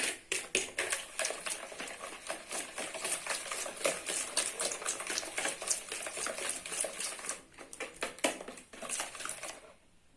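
Hand whisk beating eggs and sugar in a bowl: fast, irregular clicking and clattering of the whisk against the bowl, stopping shortly before the end.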